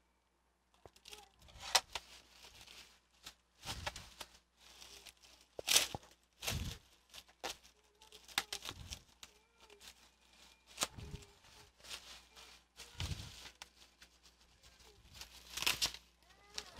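Plastic packaging and bubble wrap being handled and unwrapped from a graphics card: irregular rustles and crinkles with short pauses between them.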